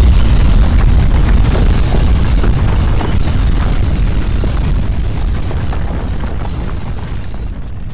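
Earthquake shaking: a loud, deep rumble with scattered rattling and clattering, slowly fading out.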